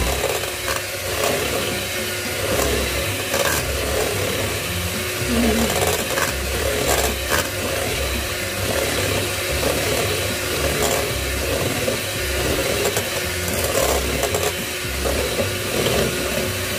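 Electric hand mixer running steadily, its beaters whisking eggs in a stainless steel bowl, with scattered short clicks.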